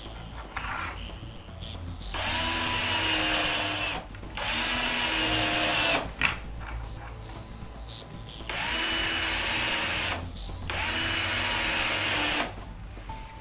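Cordless drill driving screws through metal L clips into a plywood toe-kick board: four short runs of the motor in two pairs, each run rising in pitch as it starts. A single sharp click comes right after the second run.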